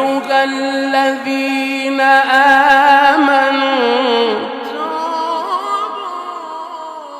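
A male Quran reciter's voice holding one long, ornamented melodic note in maqam Kurd, the pitch wavering in small turns. It is loudest a couple of seconds in, then slowly fades.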